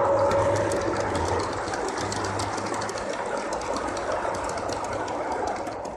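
Gauge 1 model train of hopper cars rolling past, its wheels clicking rapidly over the track. A low hum fades out about a second and a half in.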